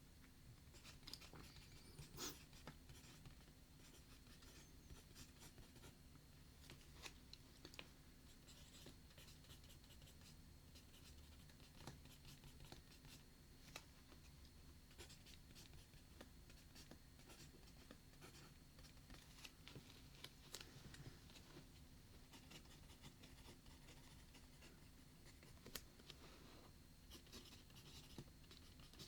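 Faint sounds of writing on paper: soft scratching strokes with occasional small clicks.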